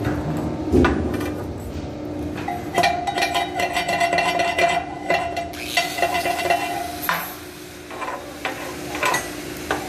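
Stick (SMAW) welding arc with a 7018 electrode on carbon steel pipe, crackling and sizzling steadily while the cap pass is run.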